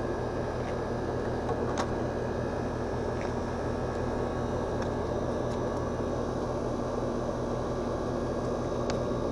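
Air conditioner's outdoor condenser unit running, its condenser fan and compressor giving a steady hum and whoosh. A few faint clicks come through it.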